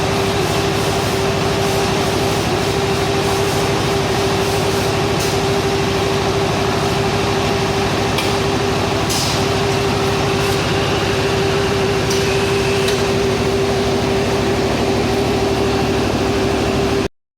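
Electric silage baler and wrapper running steadily with a constant motor hum and whine. Short hisses come a few times, and the sound stops abruptly near the end.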